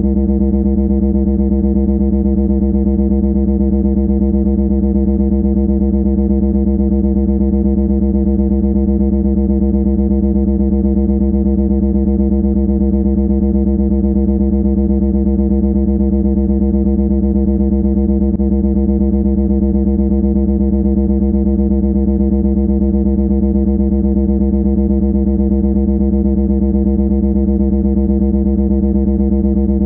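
A loud, steady buzzing drone held at one pitch, harsh and distorted, with a fast flutter and no change at all.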